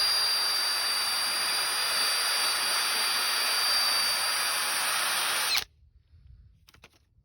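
Handheld rotary power tool running steadily with a high whine, working off the filler that covers a weld on a steel go-kart frame. It cuts off abruptly about five and a half seconds in, followed by a faint click.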